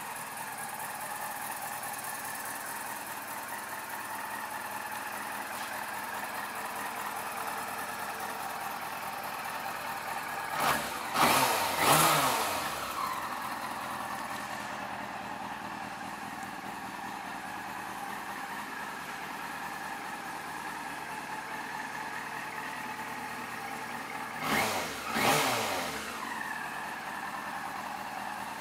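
Yamaha R6's inline-four engine idling steadily, with a burst of quick throttle blips about eleven seconds in and another pair of blips about twenty-five seconds in, the revs rising sharply and dropping back to idle each time.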